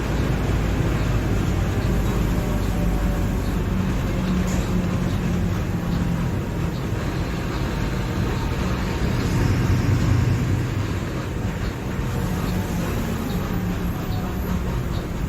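Mercedes-Benz OF-1721 Bluetec 5 bus's four-cylinder turbodiesel engine running under way, pulling harder and growing louder about ten seconds in, then easing back.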